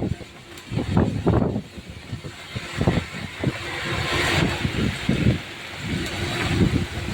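Heavy rain falling while traffic runs on a wet road, with a vehicle swishing past about four seconds in. Irregular low thuds knock on the microphone throughout.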